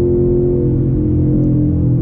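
Chevrolet Camaro ZL1's supercharged 6.2-litre V8 heard from inside the cabin while driving at a steady pace; its note dips in pitch for about a second midway, then holds steady.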